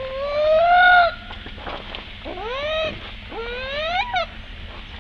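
Baby monkey crying: three drawn-out, high-pitched cries. The first rises and holds for about a second, the second rises and falls away, and the third climbs steadily to its highest point about four seconds in.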